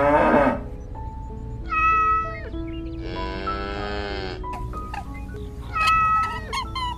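Animal sound effects over light background music: a cow's moo ending just after the start, then meowing calls about two seconds in and again near the end, with a longer drawn-out call in between and short repeated chirps beginning at the very end.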